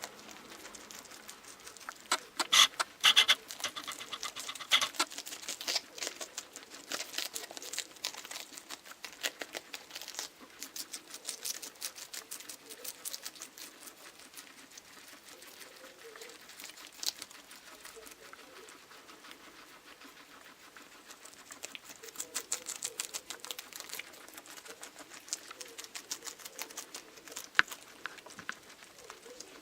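Guinea pigs chewing lettuce: rapid, crisp crunching clicks in clusters, busiest a couple of seconds in and again past the middle.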